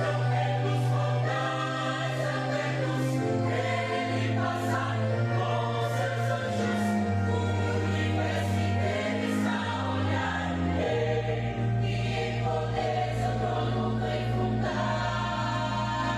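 Church choir singing gospel music in held chords over a bass line that moves to a new note every few seconds.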